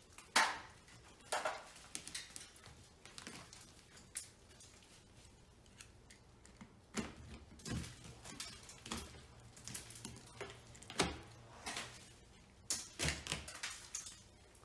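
Soft, water-damaged gypsum drywall being broken and cut away from a ceiling by hand and with a utility knife: irregular short crunches and scrapes.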